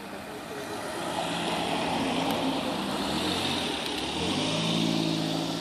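A road vehicle passing close by: tyre and road noise swells over the first couple of seconds and holds, and a low engine hum grows in over the last two seconds.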